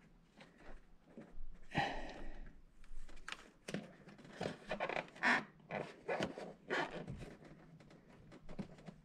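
Faint, irregular clicks and rustles of wiring being handled as Power Commander lead connectors are pushed onto the ignition coil terminals of a Honda Pioneer 500.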